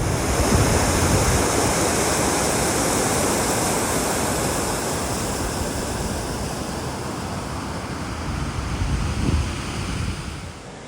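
Steady rush of water: a continuous, even hiss-and-roar of a waterfall or torrent. It eases slowly, swells briefly about nine seconds in, then drops away sharply near the end.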